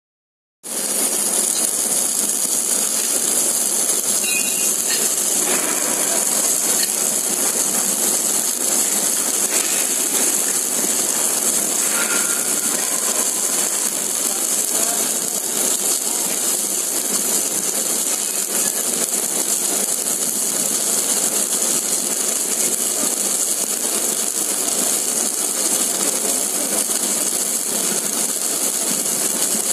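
Steady machinery noise of a spiral pipe welding line during submerged arc welding of the outside seam: an even, constant hiss over running machinery. It starts about half a second in.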